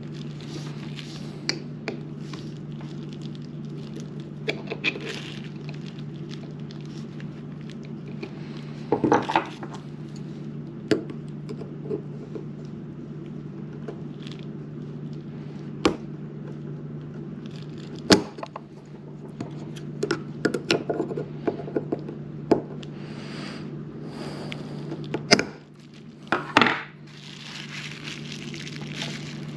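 Scattered light metallic clicks and clinks of a forged piston, wrist pin and circlip being handled, with a circlip being worked into its groove with needle-nose pliers. A few louder knocks and rustles stand out, over a steady low hum.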